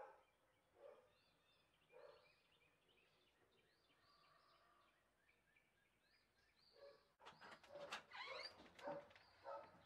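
Faint birds chirping and calling, with a few short lower calls about once a second at first; the calls get louder and busier about seven seconds in.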